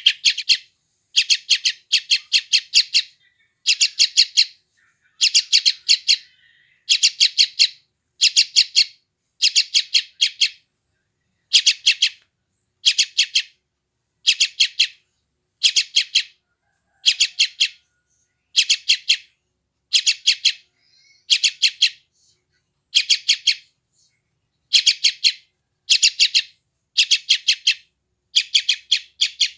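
Yellow-vented bulbul fledgling calling for food: short bursts of four to six rapid, high chirps, repeated about once a second without pause.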